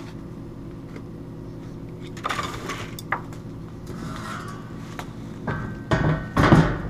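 Stainless steel lid of a soluble-support wash tank being handled and swung open, with a scrape and a click midway and a loud metal clatter near the end as the lid lifts. A steady low hum runs underneath.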